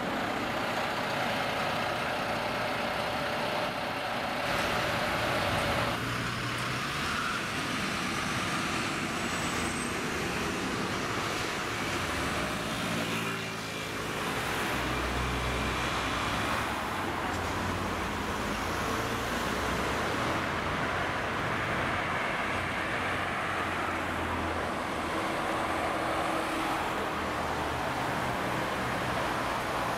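City street traffic: Mercedes-Benz Citaro city buses and cars driving past, engines running and tyres on the road. The sound changes abruptly about six seconds in and again around thirteen seconds in.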